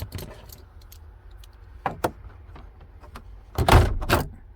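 Plastic clicks and knocks as the multi-function turn-signal lever is forced out of the steering column, with a louder rattling clatter near the end as it comes free.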